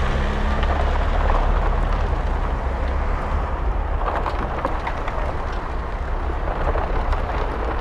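Road traffic: vehicle engines running with a steady low rumble.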